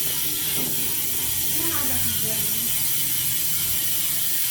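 Sagmit Ultralite ratchet-type rear hub freewheeling as the wheel spins, giving a steady, even buzz of very fast clicks.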